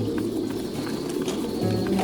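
Pigeons cooing, with background music playing along.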